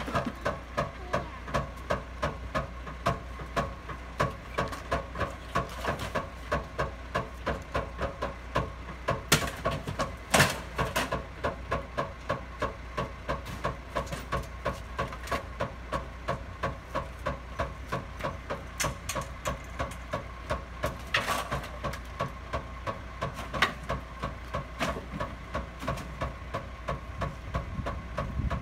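Rear-loader garbage truck running at the kerb with a steady mechanical ticking about two or three times a second, and a few sharp bangs as bulky junk is thrown into its hopper.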